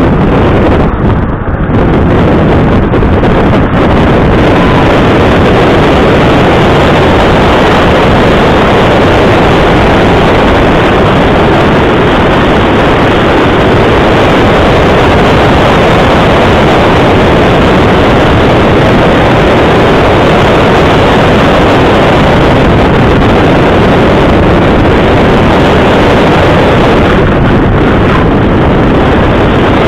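Loud, steady wind buffeting on the microphone of a camera mounted outside the car door, over the engine and tyres of a 2009 Volkswagen GTI being driven hard on an autocross course.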